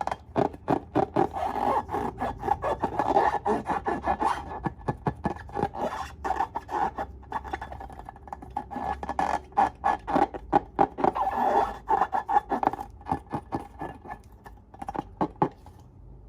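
Slime being worked by hand or stirred, a dense, irregular run of sticky clicks and squelches that thins out and stops shortly before the end.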